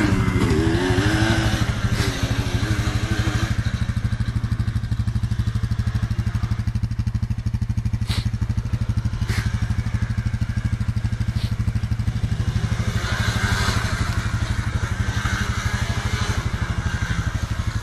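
Quad (ATV) engine idling close by with a steady, even low pulse, while another quad's engine revs up and down in the first few seconds. A couple of sharp clicks come about eight and nine seconds in.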